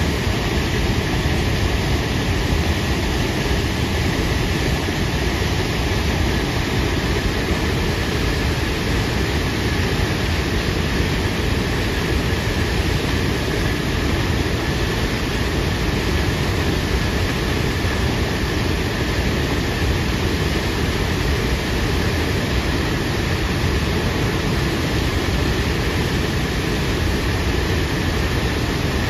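Tahquamenon Falls' Upper Falls: a broad sheet of river water pouring over the ledge, making a steady, unbroken rushing noise heaviest in the low end.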